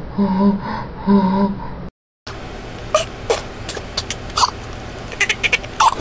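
A person's voice, warped in speed, in three low, drawn-out syllables. After a short silent gap it gives way to a scatter of short squeaks and clicks.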